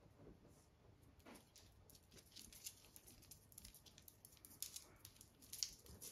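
Faint, scattered ticks and taps of a dog's and her puppy's paws and claws on a hard floor as they play, with one sharper tap near the end.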